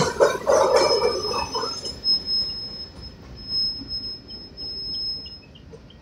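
Last cars of a BNSF freight train rolling past and fading away, the rumble dying down over the first two seconds. A thin steady high squeal from the train lingers after it and stops near the end.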